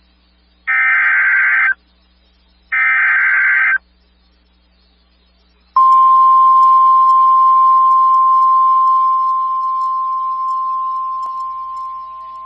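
Emergency Alert System SAME header: two harsh, buzzy digital data bursts about a second each, a second apart, marking the start of a weather warning. After a short pause comes the NOAA Weather Radio steady single-pitch warning alarm tone, which fades down over its last few seconds.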